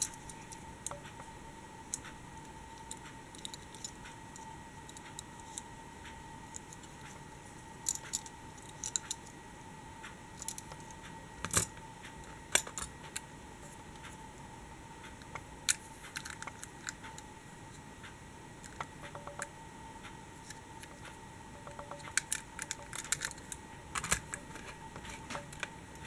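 Scattered clicks and taps of small die-cast metal and plastic toy vehicles being handled, picked up and set down on a table, in small clusters, over a faint steady hum.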